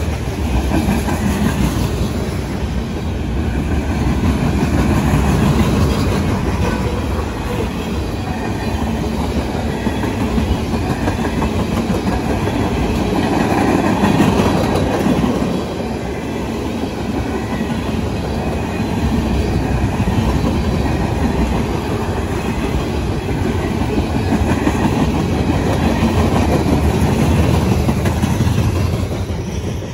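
Freight cars (covered hoppers and a tank car) rolling past at close range: a steady rumble of steel wheels on rail with repeated clicks of wheels crossing rail joints, swelling a little about halfway through.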